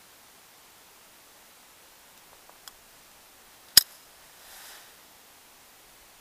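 A single gunshot about four seconds in: one sharp crack with a fainter echo trailing after it. A few faint clicks come shortly before it.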